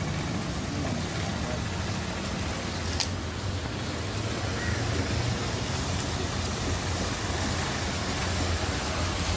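Steady street noise on a flooded road: a low vehicle hum with water sloshing, and indistinct voices in the background. A single sharp click about three seconds in.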